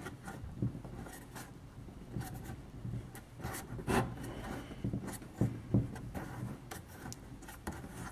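Plastic rubbing and creaking with scattered short clicks as a plastic automatic poultry drinker cup is worked by hand into a hole in the side of a plastic bucket.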